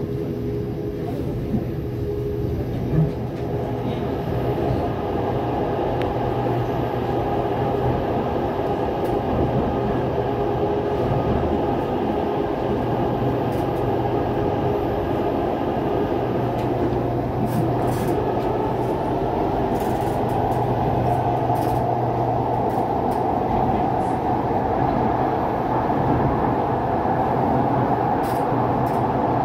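Inside a moving C751B metro train: steady running noise of wheels on rail with a low motor hum, growing louder and harsher as the train runs into the tunnel. A single sharp knock comes about three seconds in.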